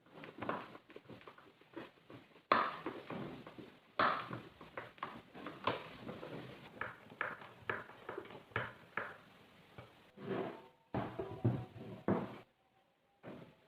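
Irregular series of light knocks and clatters, a few louder ones among them.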